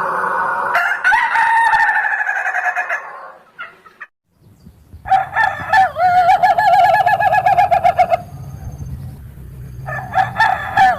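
Ayam ketawa (Indonesian laughing rooster) crowing in long, quavering calls whose pitch wobbles rapidly, like laughter. One call fades out about three seconds in; after a short break a new long trilling crow runs from about five to eight seconds, and another begins about ten seconds in.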